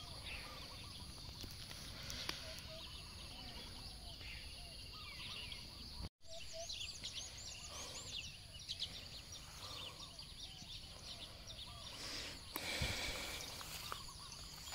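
Faint outdoor ambience of many birds calling, short chirps and whistles at several pitches, over a steady faint background hiss. The sound drops out for a moment about six seconds in, and a few soft knocks come near the end.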